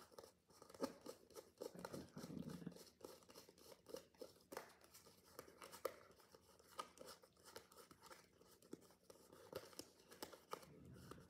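Faint rustling with many scattered light clicks and taps: small things being handled.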